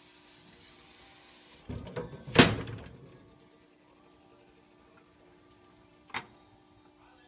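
A cupboard door opening with a few small rattles and then one loud clack about two seconds in. Just after six seconds comes a single short click as a hand takes hold of a ceramic jar.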